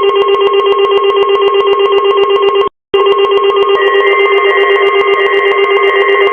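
A loud, rapidly pulsing electronic ringing tone with many overtones. It breaks off for a moment near the middle, and a higher tone joins it about four seconds in.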